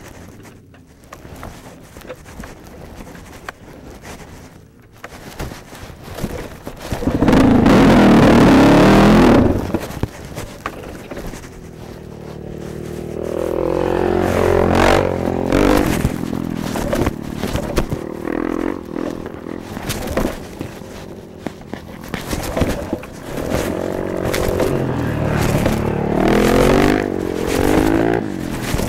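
Dirt bike engine revving up and down as it is ridden hard off-road, picked up by a helmet camera with wind noise. About seven seconds in there is a loud rush of noise lasting a couple of seconds.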